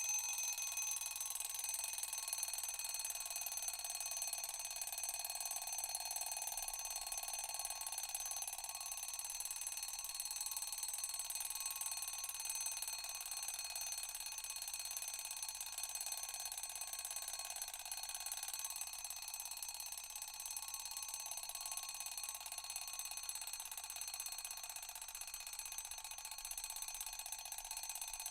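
Wind-up mechanical alarm clock's bell ringing without a break, a dense metallic ring that slowly grows a little quieter.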